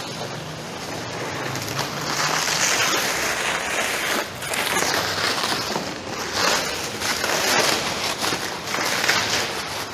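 Plastic stretch wrap crinkling and rustling as it is pulled off by hand and bunched up, in irregular swells.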